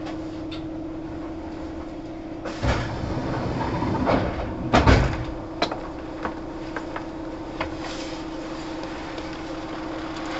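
Interior of a stopped Kintetsu 1810 series train car: a steady hum from its equipment. About two and a half seconds in a louder rushing, clattering noise builds and peaks near the five-second mark, and a few light knocks follow.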